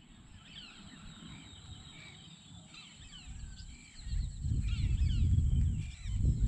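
Many wetland birds chirping and whistling from all around, with a steady high whine above them. A low rumble comes in about four seconds in and is the loudest sound.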